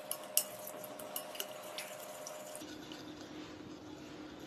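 A spoon stirring yeast into sugar water in a glass bowl: faint, sharp clicks of the spoon against the glass and light liquid sounds, the clicks mostly in the first two seconds. A steady low hum runs underneath.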